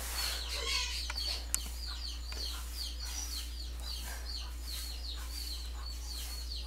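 Birds chirping over and over in short falling notes, several a second, over a low steady hum, with a single sharp click about a second and a half in.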